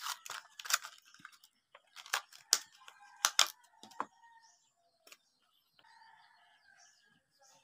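Plastic blister pack of a small glue tube crackling and clicking as it is torn open by hand, a handful of sharp crackles over the first four seconds. Faint bird calls follow near the end.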